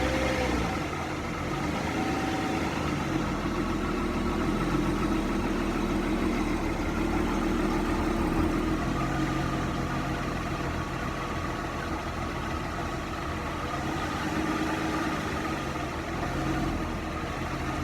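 Volkswagen 12-valve VR6 engine idling steadily.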